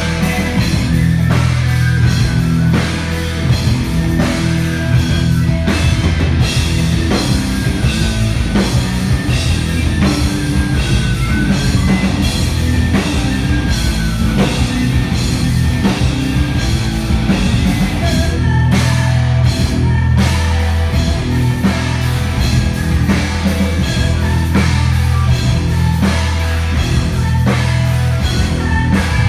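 Folk-metal band playing live at full volume: drum kit and guitars over a heavy bass, with steady, regular drum strikes.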